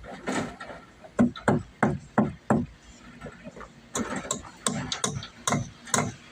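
Hammer blows on timber: a run of five sharp strikes about a third of a second apart, then after a short pause another steady run of blows.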